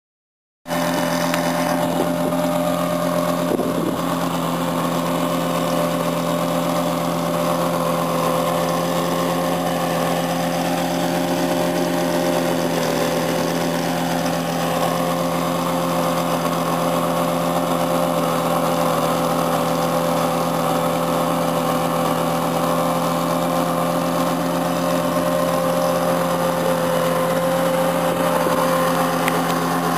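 Unimog truck engine running at a steady, unchanging speed as the truck rolls slowly across sand. It starts abruptly about half a second in.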